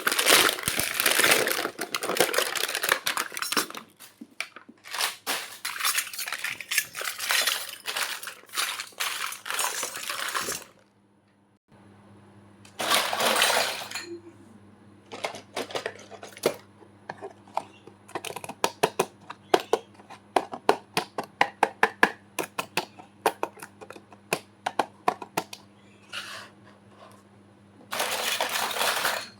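Crinkling and rustling of plastic packaging, then, after a short break, a long run of quick sharp clicks and clinks of small plastic toy kitchen pieces being handled, broken by two more bursts of crinkling.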